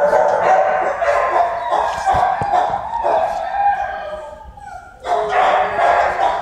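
A dog giving long, drawn-out pitched cries: one stretch lasting about four seconds, a brief pause, then another starting about five seconds in.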